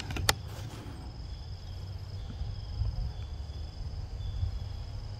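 Insects buzzing steadily at a high pitch over a low outdoor rumble, with one short click a fraction of a second in.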